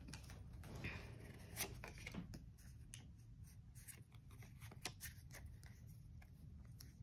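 Faint rustling and light clicks of a stack of Pokémon trading cards being handled and slid against each other in the hands.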